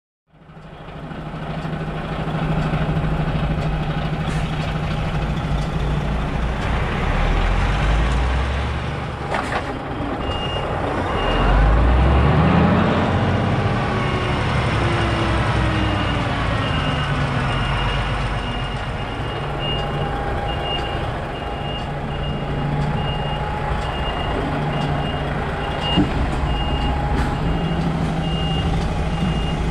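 DAF XF truck's diesel engine running at low revs, with the revs rising briefly about a third of the way in, while the reversing alarm beeps steadily as the tractor unit backs up. A single sharp knock sounds near the end.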